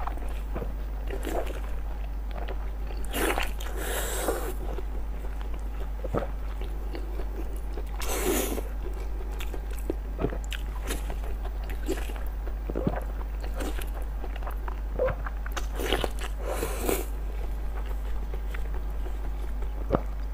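Close-up mouth sounds of someone eating a soft blood sausage in its casing: wet biting, sucking and chewing. The louder moments come about 3–4, 8 and 16–17 seconds in.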